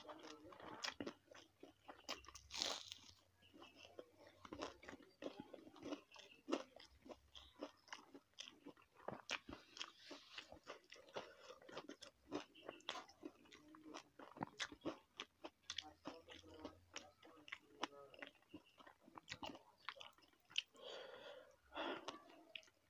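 A person chewing and crunching food close to the microphone, with many sharp, irregular mouth clicks and smacks.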